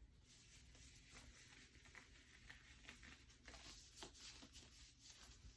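Near silence with faint, scattered rustles and light clicks from sterile gloves being handled and pulled on.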